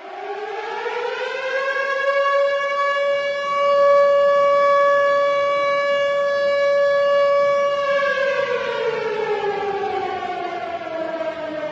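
A warning siren sounding one long note: it rises in pitch over the first two seconds, holds steady for about six seconds, then slowly falls in pitch near the end.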